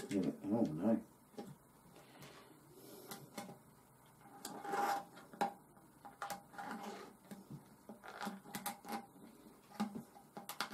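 Irregular clicks, knocks and rubbing as the parts of a wet brass tumbler's drum, an acrylic barrel and stainless steel end pieces with a rubber O-ring, are handled and pushed together.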